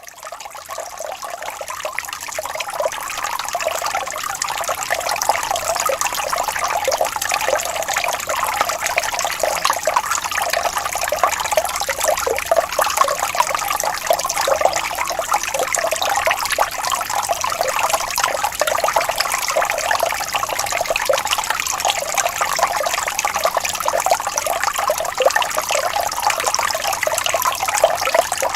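Running water, splashing and trickling steadily like a small waterfall, fading in over the first few seconds.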